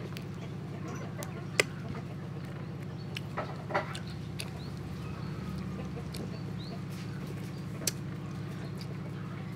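Eating sounds from roasted duck eaten by hand: a few sharp lip smacks and clicks about a second and a half in, around four seconds in and near the end, over a steady low hum.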